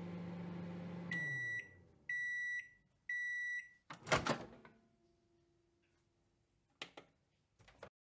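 Microwave oven finishing its cycle: the steady low running hum winds down about a second in, then three beeps a second apart. A loud clunk of the door latch releasing follows just past the middle, with two faint clicks near the end.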